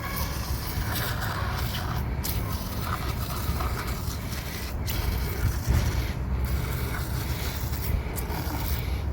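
Continuous scraping and rubbing over a low rumble, as of parts or tools being handled and rubbed.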